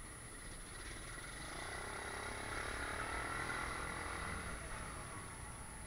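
A motor vehicle's engine grows louder to a peak about halfway through, then fades away.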